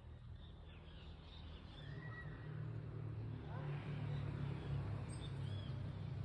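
A motor vehicle's engine rumbling, growing louder from about two seconds in, with small birds chirping.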